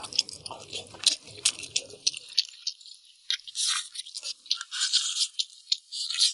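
A person chewing and gnawing on braised lamb ribs: a dense run of wet mouth clicks, smacks and small crunches, with no talking.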